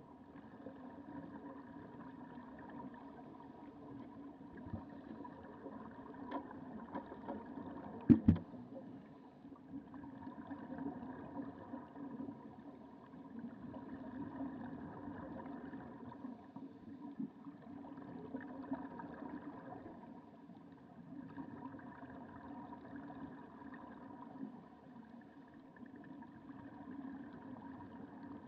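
Muffled underwater sound heard through a camera's waterproof housing: a steady rushing hum that swells and fades with the divers' exhaled regulator bubbles. A sharp knock comes about eight seconds in.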